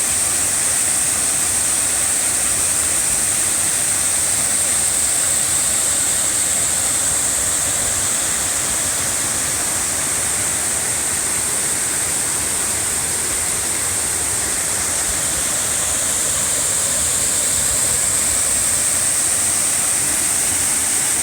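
Twin waterfall pouring into the pool at its base: a steady, loud rushing of falling water.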